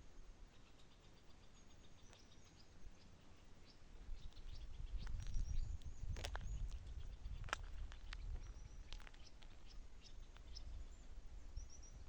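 Small birds chirping and trilling in quick high runs, over a low rumble that swells about four seconds in and eases off near the end, with a couple of sharp clicks in the middle.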